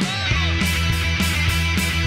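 Punk rock song, instrumental section: drums beating fast and even with electric guitar. The bass and cymbals come in under a second in, and the full band plays on.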